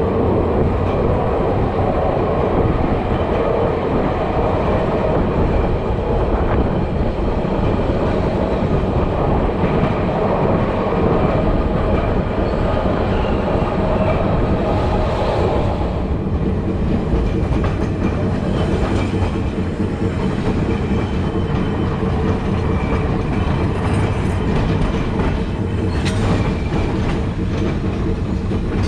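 A 1920s Milan Series 1500 tram running along the street, its steel wheels clattering on the rails and its old body rattling steadily. About halfway through the sound grows thinner. Near the end there is a run of sharp clicks from the wheels on the track.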